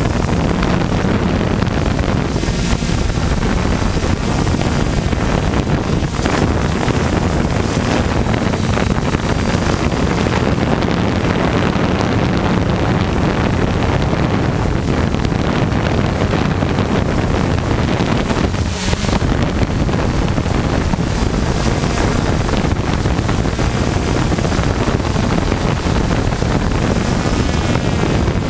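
FPV hexacopter's motors and propellers droning steadily in flight, heard through the onboard camera with heavy wind noise on the microphone. The motor pitch shifts slightly as the craft manoeuvres.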